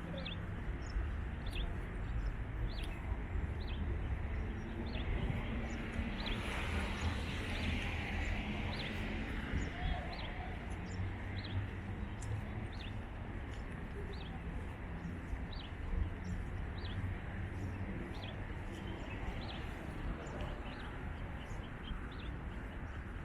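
Small birds chirping, short high calls repeating about once a second, over a steady low outdoor rumble, with a broader swell of noise about six seconds in.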